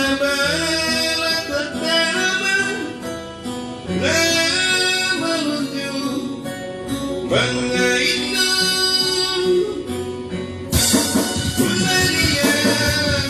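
Music: a song with a singing voice over guitar accompaniment, in phrases a few seconds long.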